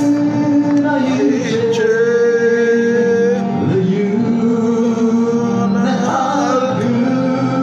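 A man singing a gospel worship song (mezmur) over instrumental backing, holding some notes long.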